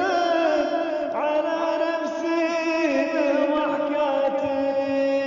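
Wordless male vocal chanting in several layered voices, holding long notes that step slowly from pitch to pitch, as the backing of a chanted Arabic poem.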